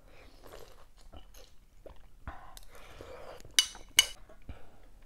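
A person chewing a mouthful of food close to the microphone, with two sharp clinks of a metal spoon against a ceramic plate, half a second apart, a little past halfway.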